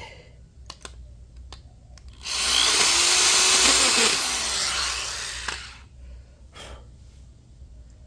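Corded electric drill boring a pilot hole into a wooden block. After a few light handling clicks, the drill starts about two seconds in, runs for roughly three and a half seconds with its motor pitch rising and then falling as it winds down, and stops.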